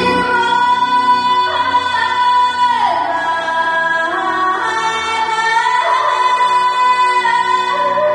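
A woman singing a Mongolian song into a microphone, holding long notes with sliding ornaments between them, over a steady accompaniment.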